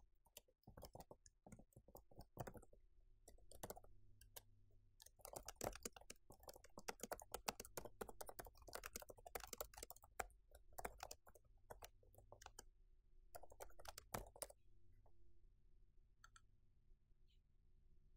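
Faint computer keyboard typing and mouse clicks in quick runs of keystrokes, which stop about fourteen seconds in. A faint steady low hum sits underneath.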